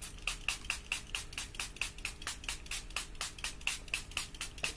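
Makeup setting spray pump bottle misted over the face again and again in quick succession, about six short spritzes a second.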